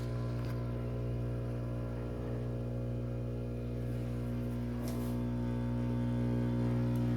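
Ninja Luxe Cafe Pro espresso machine's pump humming steadily as it pushes water through the puck to pull a shot. The shot runs too fast and runny, a sign of a loosely tamped puck.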